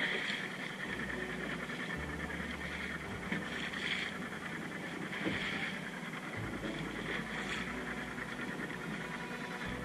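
Rigid inflatable boat under way on choppy sea: water rushing and splashing past the hull, with wind buffeting the microphone in gusts.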